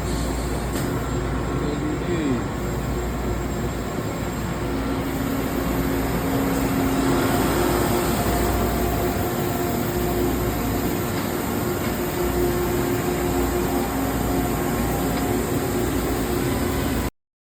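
CNC Swiss-type lathe running: a steady machine drone with a few faint held tones over it, cutting off suddenly near the end.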